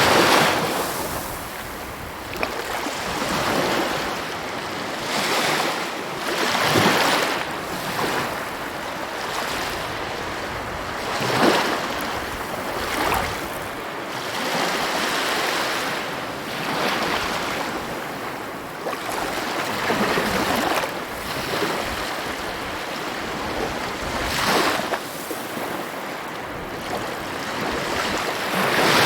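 Ocean waves breaking on the shore, a steady wash of surf with a wave cresting and crashing every few seconds.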